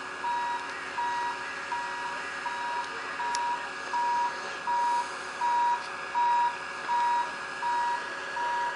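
Motion warning beeper on a rail-mounted crane sounding a steady run of single-pitched beeps, a little under two a second, over the steady hum of the crane's engine.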